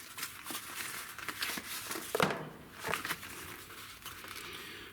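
A hand file scraping over freshly soldered connector joints in short, irregular strokes, with one louder stroke about two seconds in, smoothing off excess solder.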